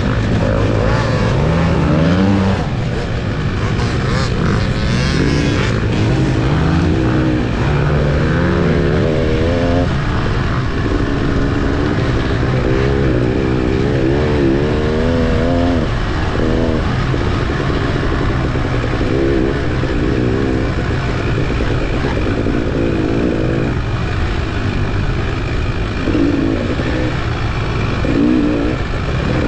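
Off-road motorcycle engines running and revving up and down throughout, several at once at different pitches.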